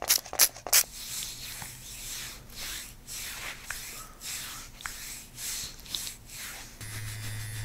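A hand rubbing massage lotion over the bare skin of a back in sweeping strokes, about two a second, after a few quick sharp sounds from the lotion bottle being squeezed out in the first second. A steady low hum comes in near the end.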